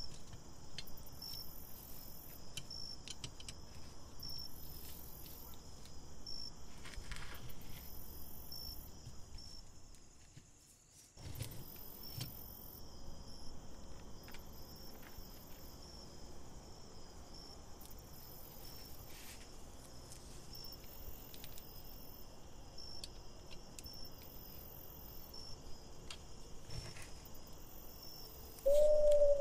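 Faint clicks of metal parts being handled as a hand food press is put back together, over a faint high chirp that repeats about once a second. Near the end a loud, slightly wavering steady tone sets in.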